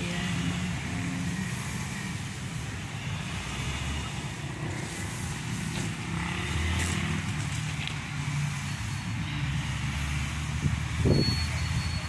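Motor vehicle traffic on a road, a steady low engine rumble, with a brief louder sound near the end.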